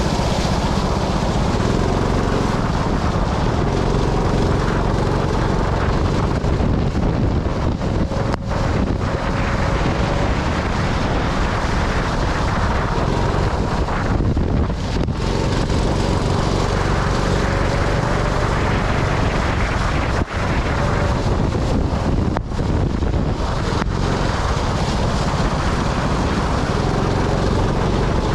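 Sprint kart engine running on track, its pitch rising and falling, under heavy wind noise on the microphone.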